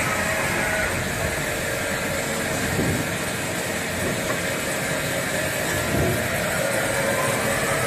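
A 1992 Okuma LB-25 CNC lathe running under power: steady machine noise with a faint high whine through it.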